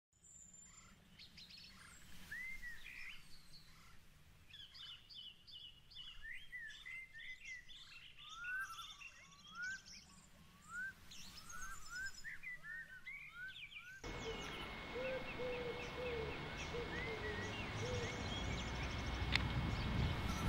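Small birds singing and chirping, with many short rising whistled notes repeating. About two-thirds of the way through it changes abruptly to a louder outdoor background with a low rumble, the birdsong going on behind it. A sharp click comes near the end.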